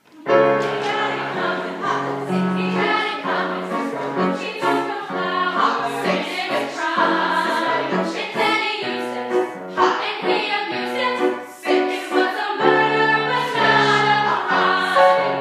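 Women's choir singing with grand piano accompaniment.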